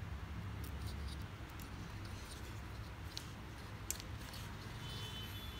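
Faint clicks and light rustling of an electrical wire being threaded through the holes of a perforated plastic mounting board, over a low steady hum.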